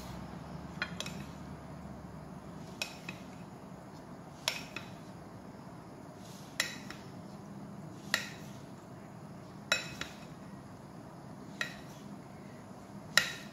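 Plastic spatula mixing butter into cooked rice and knocking against a ceramic bowl: a sharp clink every second and a half or so.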